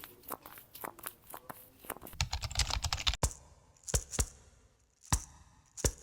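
Paper being handled: a run of light, irregular clicks and crinkles, densest a couple of seconds in, then a few separate taps.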